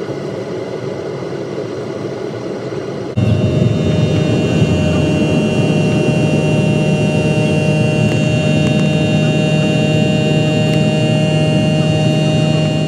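Boeing 737-800's CFM56-7B turbofan engines heard from inside the cabin over the wing: a steady jet roar with a high fan whine. About three seconds in it steps abruptly up to a louder, steady roar at takeoff and climb power.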